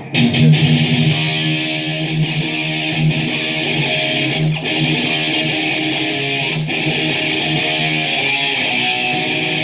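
Gibson Les Paul Special electric guitar played loud and distorted through an amp, a rock riff of ringing low chords broken by a few short stops; its pickups are very hot and scream.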